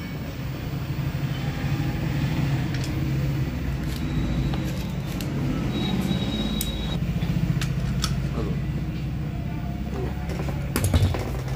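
A steady low motor rumble with scattered sharp metallic clicks and taps from hand tools working on a bare engine block, and a louder knock near the end.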